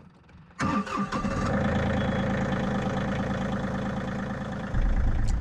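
Pickup truck engine cranking and catching about half a second in, then running steadily at idle. A deeper low rumble grows louder near the end.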